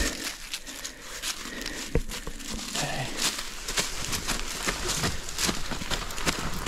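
Dry fallen leaves crackling and rustling continuously as a heavy dead wild boar is dragged across the forest floor, with footsteps crunching in the leaves and a sharper knock about two seconds in.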